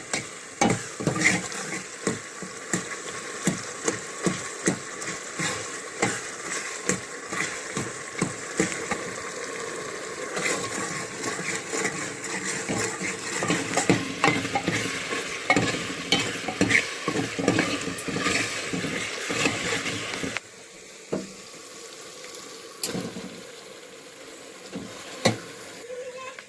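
Food frying and sizzling in a pan while a metal ladle stirs and scrapes it, with frequent irregular clicks and knocks. The sizzle drops sharply about 20 seconds in, and the stirring knocks go on more sparsely after that.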